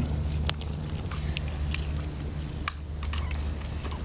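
A cat chewing and biting a small catfish, making scattered sharp crunching clicks over a steady low hum.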